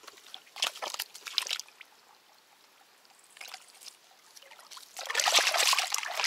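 Water splashing and trickling as a crucian carp is pulled out of the shallows on a handline, with a louder burst of splashing about five seconds in.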